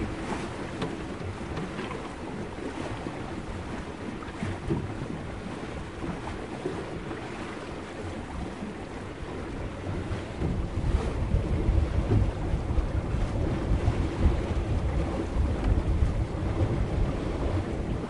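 Sailboat at sea: water washing and splashing against the hull, with wind blowing. A low wind rumble grows louder about halfway through.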